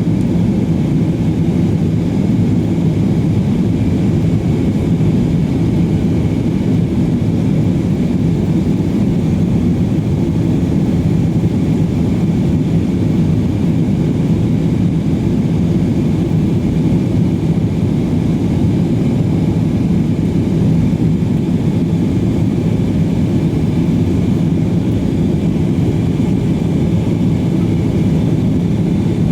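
Steady, even rumble of engine and airflow noise inside the cabin of an Airbus A320 airliner.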